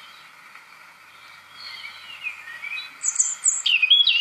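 Recording of a European robin singing: thin, high warbling phrases, soft at first and louder from about three seconds in, over a steady background hiss.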